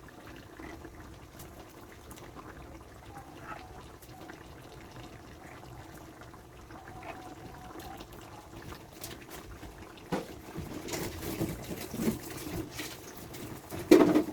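A pot of coconut-milk stew simmering with a soft bubbling. From about ten seconds in come louder irregular knocks and rustles in the pot, the loudest just before the end.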